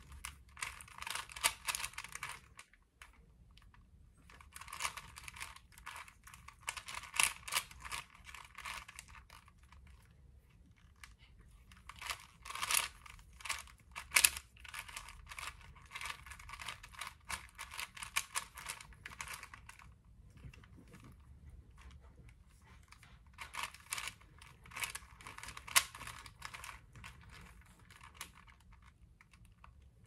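A plastic Rubik's-type puzzle cube being turned by hand: quick runs of clacking layer turns lasting several seconds, broken by short pauses.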